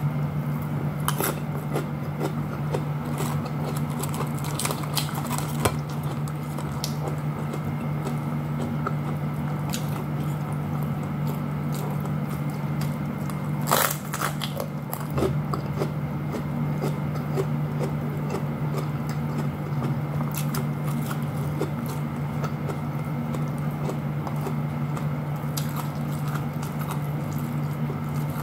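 Close-up eating sounds of food eaten by hand: chewing and crunching with many small wet mouth clicks, as leaves of Chinese cabbage with rice and fried fish are bitten and chewed. There is a louder crackle about halfway through, and a steady low hum underneath.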